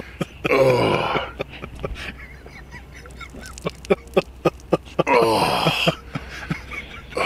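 A man gulping down a glass of milk in quick swallows, about three or four a second, framed by two loud vocal sounds: one about half a second in and one about five seconds in.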